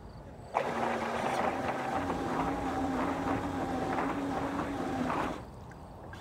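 Electric motor of a Bancroft LCM3 RC landing craft starting suddenly about half a second in and running with a steady whine over a noisy wash, then cutting off after about five seconds.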